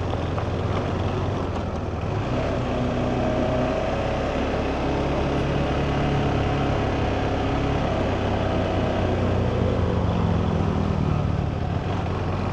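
KTM 390 Adventure's single-cylinder engine running at low speed, with wind and road noise. Its pitch drifts up and down and eases lower near the end.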